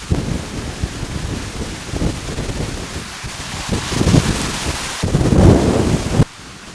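Wind and rain noise: low, irregular rumbling gusts over a steady hiss, cutting off abruptly near the end.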